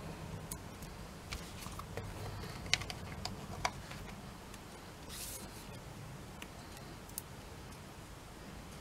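Scattered light clicks and taps of cardstock pieces being handled and pressed down on a craft mat, with a short papery rustle about five seconds in, over a low steady hum.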